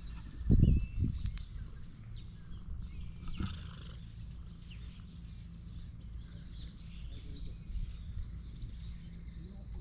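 A cat purring steadily close up while being stroked, with a loud low bump about half a second in and another soon after. Small birds chirp faintly in the background.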